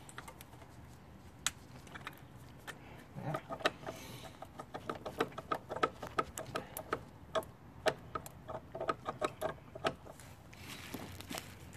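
Quick, irregular clicks and light metallic taps in short clusters as a billet aluminium catch-can bracket and its bolt are worked into place by hand in the engine bay.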